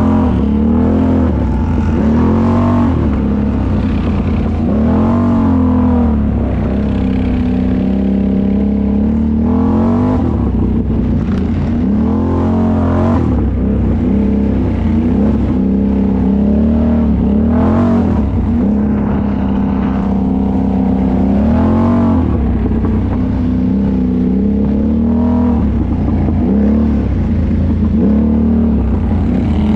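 ATV engine running under way, revving up and down again and again, its pitch rising and falling every couple of seconds.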